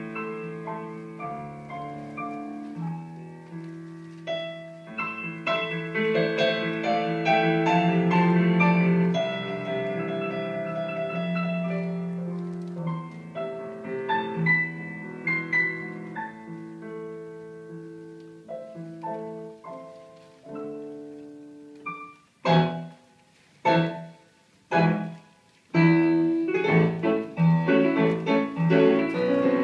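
Piano music: slow, held notes at first, then a few short, separate chords with near-silent pauses between them, before quicker notes pick up near the end.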